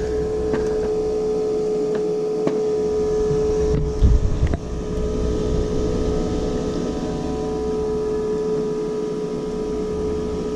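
Steady electric hum of a running fan motor, holding one clear, unchanging tone over a low rumble, with a brief low knock about four seconds in.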